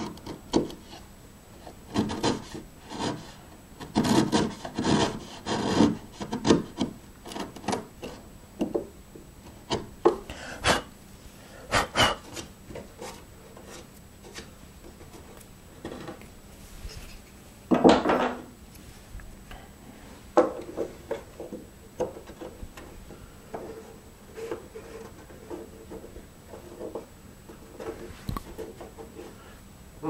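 A bladed hand tool paring wood in short, irregular scraping strokes, trimming the recess for a lock's brass plate a little at a time until it sits flush. The strokes come thick in the first few seconds, then more sparsely, with one louder stroke about eighteen seconds in.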